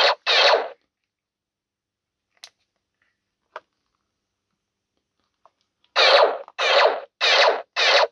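Electronic blaster-shot sound effects from the Arduino-driven sound module of a Colonial Blaster prop, played through its small speaker each time the trigger is pulled. One shot at the start, a few faint clicks, then four shots in quick succession about two-thirds of a second apart near the end.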